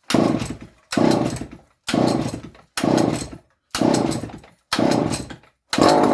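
Dolmar 118 Super two-stroke chainsaw being pull-started on full choke: seven quick pulls of the recoil starter, about one a second, each turning the engine over with a short burst. On the last pull, near the end, the engine catches and keeps running.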